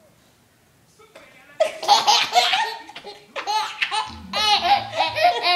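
A baby laughing in repeated high-pitched bursts, starting about a second and a half in after a short quiet stretch.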